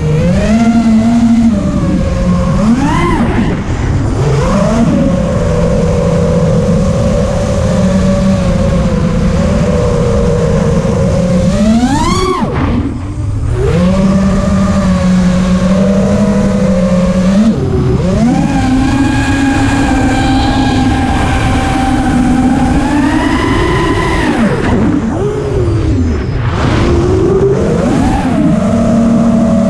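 Electric motors and propellers of a radio-controlled aircraft, heard from its onboard camera: a loud, steady whine that swoops up and down in pitch with the throttle. It drops back briefly about twelve seconds in, and wind rushes past the microphone underneath.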